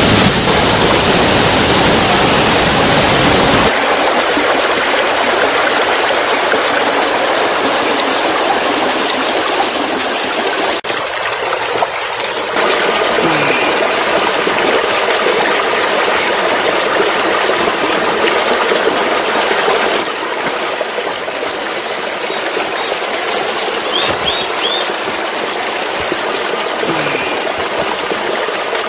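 Waterfall: rushing water as a steady, even noise that shifts abruptly in tone a few times.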